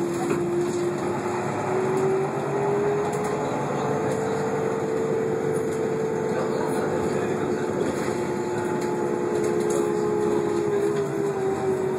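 Irisbus Citélis 12 city bus with a Voith automatic gearbox, heard from inside the passenger cabin: the drivetrain whine rises in pitch about three seconds in as the bus picks up speed, holds, then slowly falls from about eight seconds on as it slows, over steady engine and road noise.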